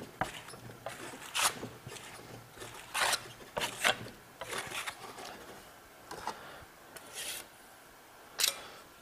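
Plastering trowel scraping Venetian plaster across a board in short, uneven strokes, one scrape about every second, while the first coat goes on.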